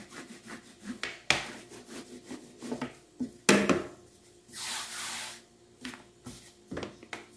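Hands working bread dough: soft rubbing as dough is rolled into balls on a work surface, with a few light knocks as the balls are set into a cake pan.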